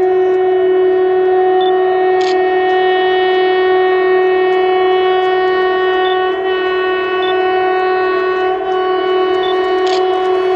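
Train horn sounding one long, steady blast at a single unchanging pitch, with a faint click about two seconds in and again near the end.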